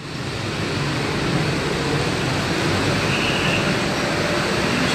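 Steady noise of passing street traffic, growing louder over about the first second and then holding.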